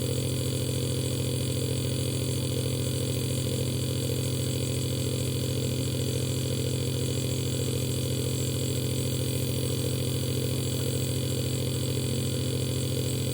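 Compressor nebulizer running with a steady, even buzzing hum, delivering a child's inhalation treatment.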